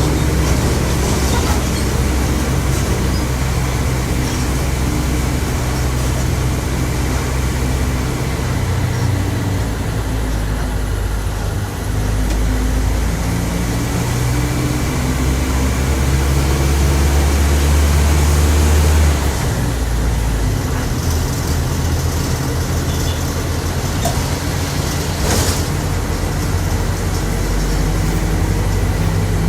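Volkswagen 17.230 OD bus driving, its diesel engine pulling and changing pitch through the gears, with a loud growl from the differential. The engine note climbs and then drops suddenly at a gear change about two-thirds of the way through. A short hiss follows near the end.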